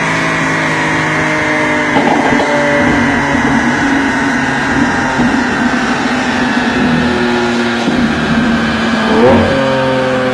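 Lamborghini Aventador's V12 engine running on a chassis dyno, its note slowly falling in pitch, with a quick rev blip about nine seconds in.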